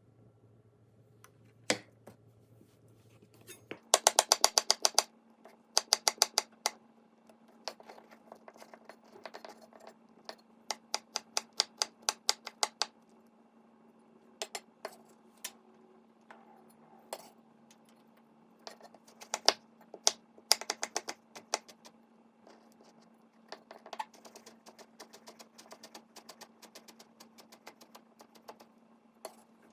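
Kitchen prep with utensils: bursts of quick, sharp tapping and clicking, some fast runs and some about four taps a second, with pauses between them. A faint steady hum starts about four seconds in.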